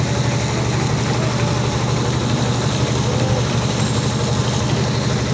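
Motorboat engine running steadily with a low, even drone, under a constant rushing noise.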